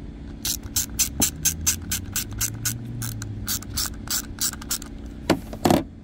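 Small ratchet clicking rapidly, about five clicks a second, as it drives T20 Torx bolts into the plastic housing of a Mercedes electronic ignition switch. Two louder knocks follow near the end.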